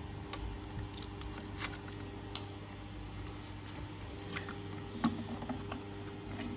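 Small clicks and rustles of a plastic baby food processor and its packaging being handled, over a steady low hum. The sharpest click comes about five seconds in.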